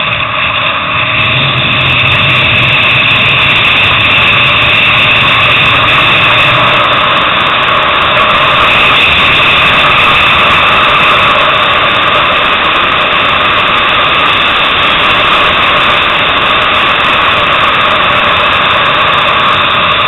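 Motorcycle engine running under load at speed, heard from onboard the bike with wind rush over the microphone; a loud, steady sound with little change in pitch.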